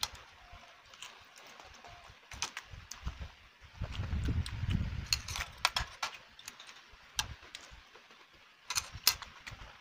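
Close-miked eating sounds: tearing and chewing crunchy Cheetos-coated fried chicken, with scattered sharp clicks of metal chopsticks against a ceramic plate.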